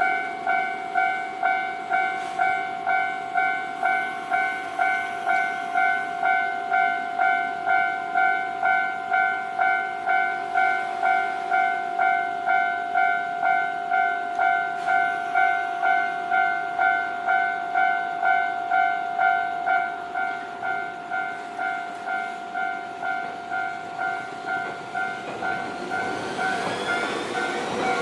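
Japanese railway level-crossing warning bell ringing, an electronic two-tone ding repeating about one and a half times a second, a little quieter from about twenty seconds in. Near the end the noise of an approaching electric train swells in under the bell, with a rising whine.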